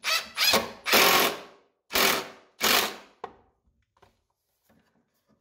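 Cordless impact driver driving a screw into wood in five short bursts of hammering, then stopping about three seconds in.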